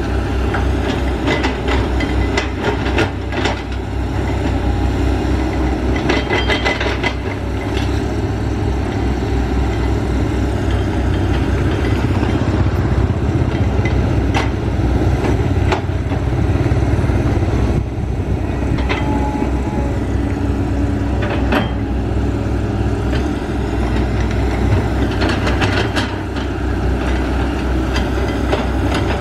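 Excavator's diesel engine running steadily, with scattered sharp clanks and knocks from the machine at work.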